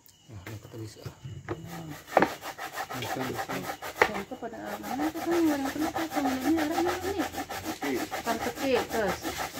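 Fresh coconut flesh being scraped on a hand coconut grater: a fast, steady run of rasping strokes.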